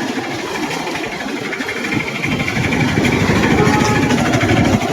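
Motorcycle engine running on the move, getting louder from about two seconds in.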